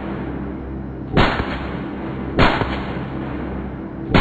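AK-74 rifle firing single shots at a slow pace: two sharp reports about a second and a quarter apart, and a third right at the end. The bump stock is failing to turn it into rapid fire.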